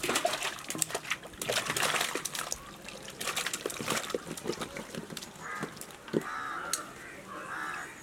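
Chunks of raw jackfruit tipped from a basin into a large aluminium pot of water, splashing and sloshing, busiest over the first four seconds or so. Crows caw in the background in the second half.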